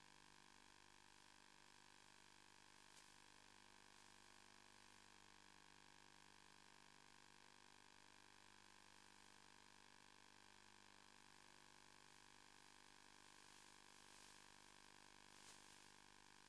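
Near silence: a faint steady electrical hum and hiss, with a couple of faint ticks.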